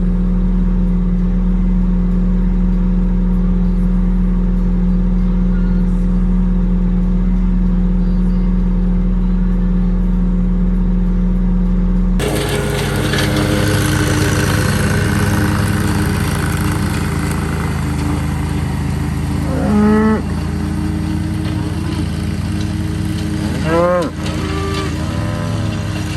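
A steady low engine hum that changes abruptly about halfway through to a rougher engine running. Over it, cattle moo twice near the end.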